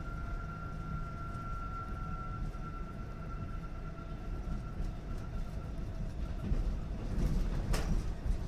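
Train running on rails: a steady low rumble with a faint steady whine that fades away over the first few seconds, and one sharp knock near the end.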